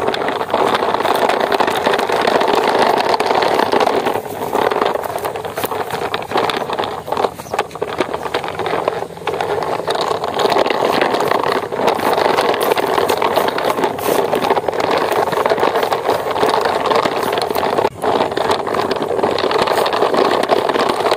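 Truck engine sound running steadily, with scattered clicks and a few brief dips.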